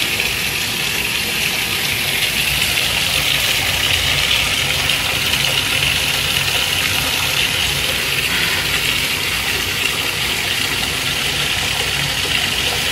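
Bath water running steadily from the tub spout into a partly filled bathtub.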